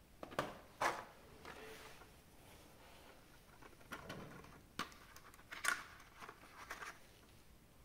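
Action figure packaging and parts being handled: scattered light plastic clicks, taps and rustles, the sharpest just under a second in and again about two-thirds of the way through.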